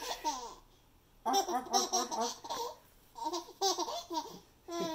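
A baby laughing in several bursts, with short pauses between them.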